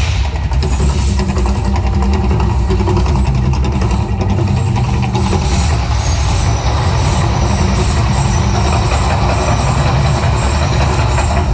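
The Mirage volcano show's loud, steady low rumble, the eruption effect of the fire and water show.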